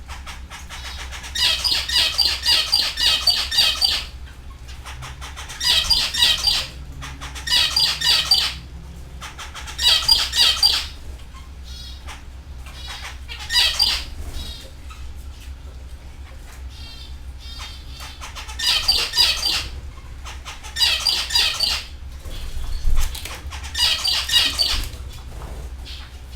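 Canary singing: about eight phrases of rapid, high trills, each a second or two long, with short pauses between them.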